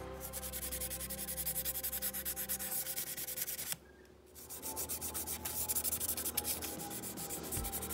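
Rapid bristle-scrubbing strokes as a toothbrush scrubs paint-stripper residue off a die-cast metal model van body. They break off briefly about four seconds in, then resume as rubbing strokes over the bare metal shell.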